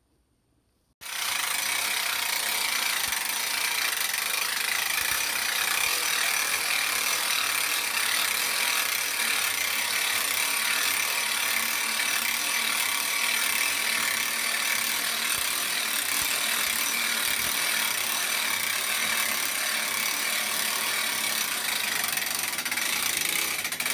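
Hand-crank winch on a Black Ice Deluxe snowmobile lift ratcheting steadily as it is cranked to raise a 1988 Ski-Doo Tundra. It starts suddenly about a second in and stops near the end.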